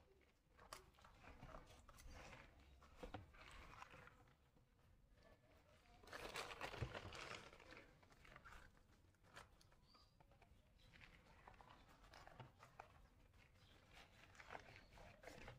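Faint rustling and crackling of hands handling plant material, the fern's roots and moss, with a louder stretch of rustling about six seconds in.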